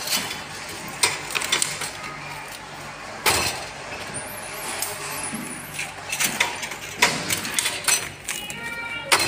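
Scattered knocks, clatters and rustles from handling metal shopping trolleys and working a cling-film wrapping machine, over a steady low machine hum. The sharpest knock comes about three seconds in.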